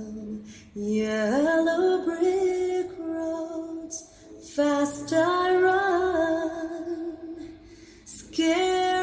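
Recorded song played back through Celestion 11 loudspeakers: a woman singing long, held wordless notes with vibrato and sliding pitch over sparse backing, with short breaks between phrases.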